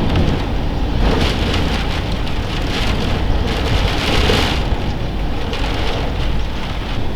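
Strong gusty wind buffeting the microphone, a heavy low rumble, with surges of rushing noise as gusts come through.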